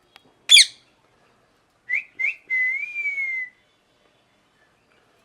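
An Indian ringneck parrot gives one short, loud screech about half a second in. About a second and a half later it whistles a run of notes: two short ones, then a longer note that rises slightly and falls away.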